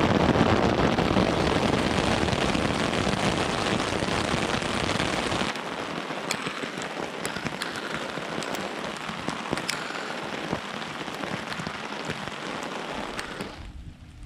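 Rain falling hard for about five and a half seconds, then, after an abrupt change, lighter steady rain with individual drops striking close by in sharp separate ticks.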